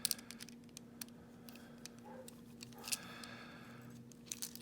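Faint, scattered light clicks and ticks from a padlock and small tools being handled, over a steady low hum.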